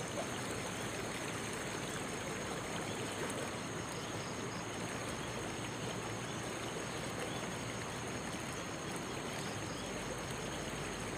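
Swollen river after a flood, its fast current rushing steadily.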